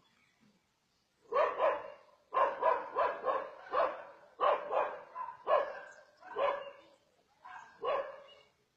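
A dog barking repeatedly in short, irregular barks, starting about a second in.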